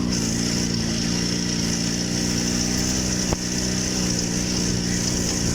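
IZh Jupiter 5 motorcycle's two-stroke twin-cylinder engine running at a steady speed, with one short knock about three seconds in.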